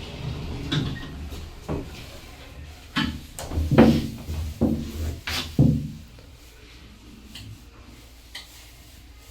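Sliding lift doors closing, with a run of clunks and knocks over the first six seconds, the loudest two near the end of the run. After that only a quieter steady background remains.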